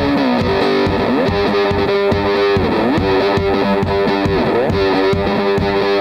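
Hollow-body electric guitar played live through an amplifier with some distortion: held notes with pitch that dips and slides back up, over a steady low beat.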